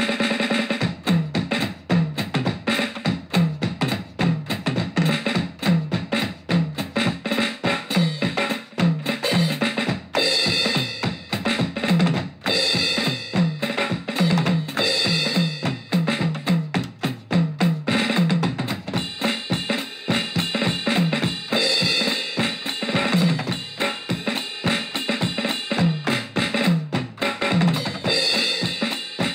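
Background music: a steady, fast drum beat with bass drum, snare and cymbals.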